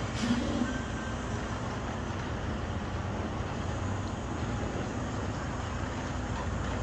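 Semi truck's diesel engine running at low revs in a steady rumble as the tractor slowly reverses a dry van trailer.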